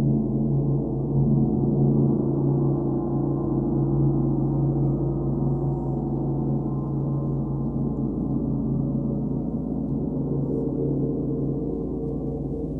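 Large hanging gongs played with soft felt mallets: a sustained wash of many overlapping low tones that swells and ebbs gently, with no sharp strikes, and eases off slightly toward the end.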